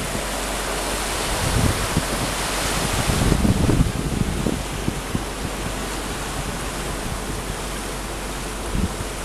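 Wind on the microphone: a steady rushing hiss with low, irregular gusts buffeting the mic, strongest about two to four seconds in.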